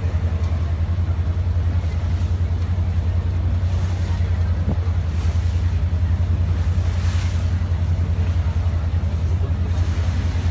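River water bus's engine droning steadily, low and fast-pulsing, with the rush of water and wind along the moving boat.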